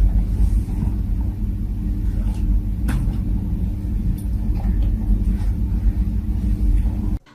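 A loud, steady low mechanical rumble and hum, with a couple of faint clicks; it cuts off abruptly just before the end.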